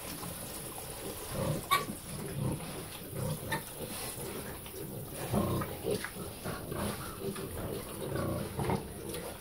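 Red Wattle hogs grunting irregularly as they root through the pen bedding for leftover feed, with one sharp knock a little under two seconds in.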